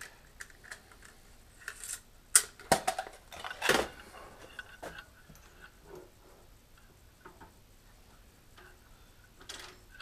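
Drill bit being changed in a milling machine's drill chuck: a cluster of sharp metal clicks and clacks about two to four seconds in, then scattered light ticks and one more click near the end. The spindle is not running.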